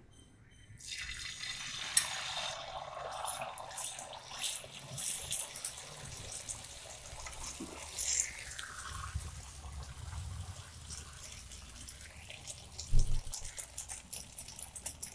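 Beaten egg sizzling as it is poured onto a hot tawa; the sizzle starts suddenly about a second in and keeps going. A metal spoon scrapes and taps on the griddle as it spreads the omelette thin, with a sharper knock near the end.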